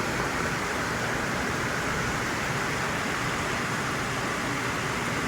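Steady hiss of rain falling, unbroken throughout.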